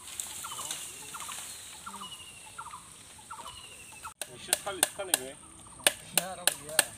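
Birds calling over and over, short repeated calls about twice a second. About four seconds in, sharp knocks of a machete chopping bamboo start, roughly three a second, with more bird calls between the strokes.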